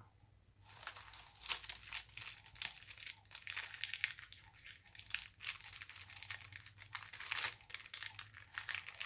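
Paper and card rustling and crinkling in irregular crackly bursts as a lace-trimmed journaling card is handled in a paper page pocket.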